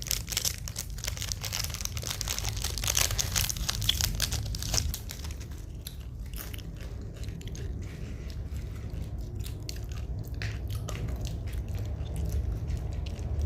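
Plastic packaging being torn open and crinkled, a dense crackling for the first five seconds or so, then sparser clicks and rustles as the contents are handled.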